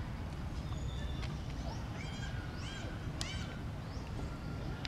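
Bird calls: a run of short, arched, high chirps repeating about twice a second, starting about two seconds in, over a steady low rumble.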